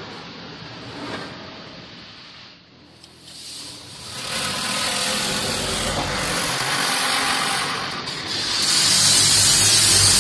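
Oasis Eclipse touch-free car wash spraying the car, heard from inside the cabin: a rushing hiss of spray on the roof and glass. It fades briefly about three seconds in, then builds again and is loudest near the end as a heavy sheet of water floods the windshield.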